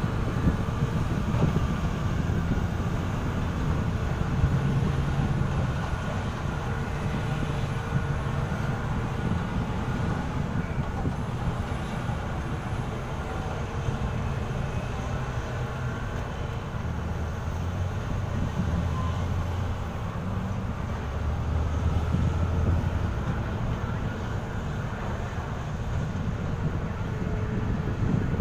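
Heavy diesel engine running with a steady low rumble.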